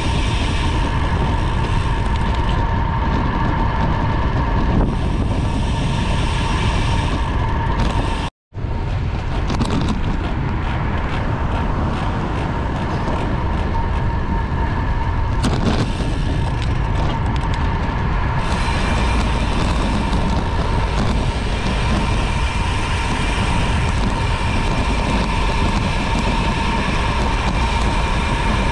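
Steady wind rushing over a bike-mounted camera's microphone while cycling on the road, with a constant whine running underneath. The sound cuts out completely for a moment about eight seconds in.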